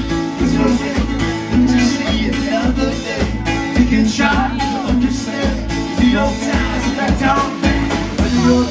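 Live rock band playing with a drum kit keeping a steady beat, guitars and keyboard, and a voice singing over them.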